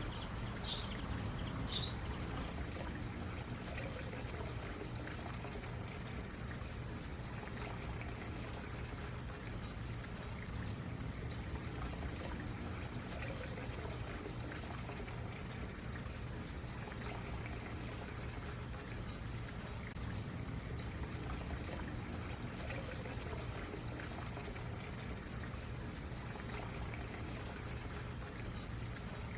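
Creek water trickling and flowing steadily over stones. A couple of short, high bird chirps sound in the first two seconds.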